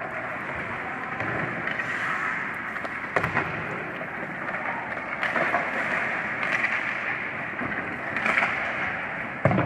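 Ice hockey skates scraping and carving on the ice, with sharp clacks of sticks and puck about three seconds in, about five seconds in, and near the end.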